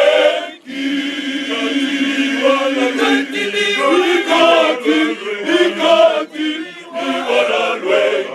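Male choir singing together in several voices, phrase by phrase with short pauses for breath.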